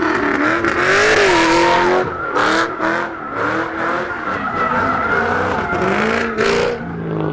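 Car engine revving up and down while its tyres skid and squeal. Short sharp bursts of noise cut in about two and a half, three and six and a half seconds in.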